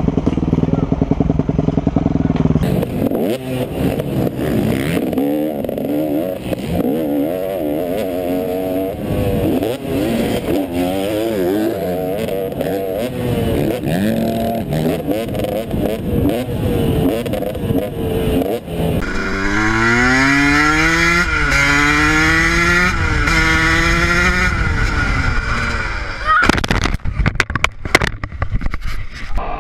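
Dirt bike engines revving up and dropping back again and again as the rider accelerates and shifts through the gears, heard from the rider's helmet camera. Near the end comes a crash: a run of hard knocks and clatter.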